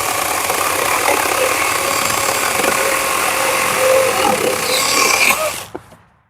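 Wild Badger 20-volt battery chainsaw cutting through a maple log: a steady electric motor whine with chain noise, which winds down and stops near the end.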